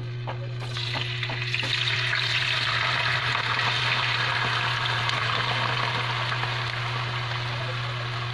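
Cubes of firm tofu sizzling as they fry in hot oil in a pan. The sizzle swells about a second in as the tofu goes into the oil, with a few light clicks, then stays steady.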